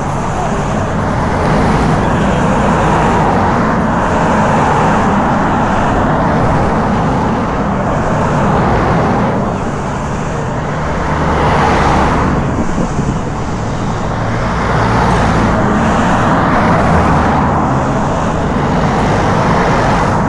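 A stream of cars passing close by on the road, the noise swelling several times as vehicles go past, over a steady low engine hum.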